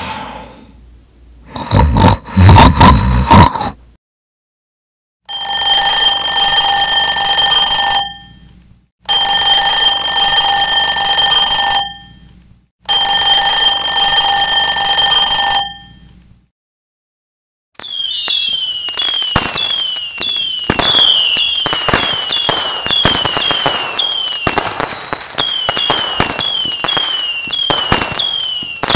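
A person snoring, one loud rasping snore in the first few seconds; then an alarm clock bell ringing in three continuous bursts of about three seconds each; then fireworks crackling and popping, with many short falling whistles, for the last ten seconds or so.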